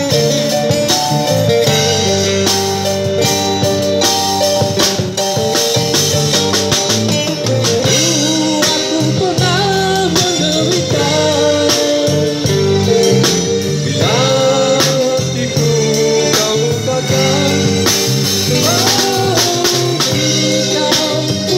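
A live band playing through a small PA: a man singing into a microphone over electric guitar, keyboard and drum kit.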